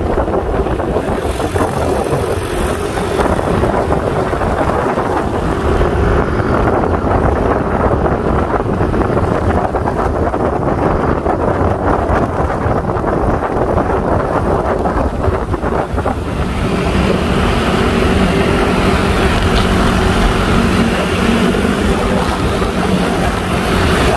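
Wind buffeting the microphone on a moving scooter, over the steady running of scooter engines. From about two-thirds of the way through, a steadier engine hum gets louder as other Yamaha Aerox scooters ride close alongside.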